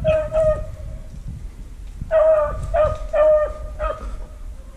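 Beagles baying on a rabbit chase: two short bays at the start, then a run of four more about two seconds in.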